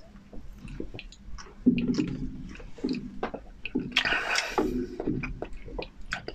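Close-up wet, squishy chewing of soft mousse cake, with mouth smacks and clicks and a brief louder rush of noise about four seconds in.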